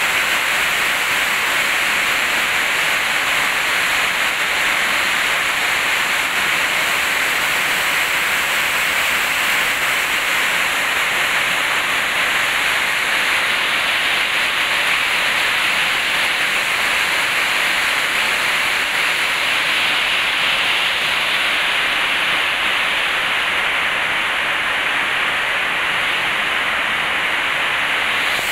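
Heavy rain falling steadily: a loud, even hiss of downpour.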